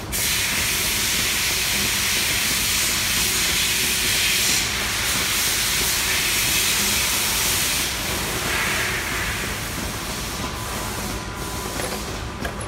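A steady, loud hiss, easing off a little about eight seconds in.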